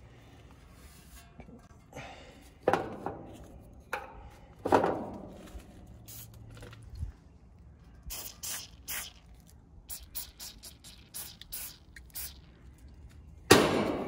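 Aerosol can of Jack of All Sprays penetrating oil squirted in a run of short bursts onto a condenser fan blade's hub, soaking the rusted motor shaft so the blade will come off. A few knocks come before the spraying, and a louder one near the end.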